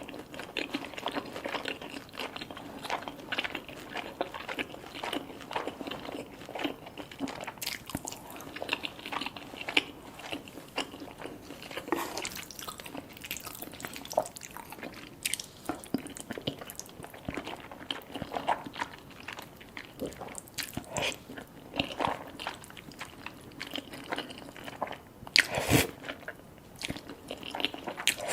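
Close-up eating sounds: a person biting and chewing crunchy food, with frequent irregular crisp crunches and mouth sounds. One louder sharp sound comes near the end.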